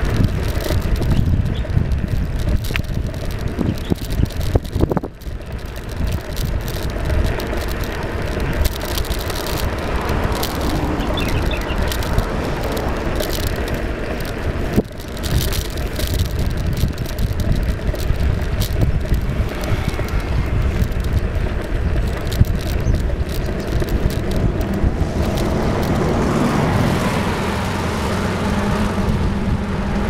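Wind buffeting the microphone of a camera travelling along a road, with rumble and rattling from the ride. A low steady hum comes in near the end.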